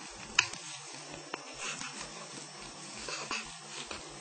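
Knitting needles clicking against each other three times as ribbon yarn is knitted and wrapped around the needle, with faint soft rustling of the yarn between the clicks.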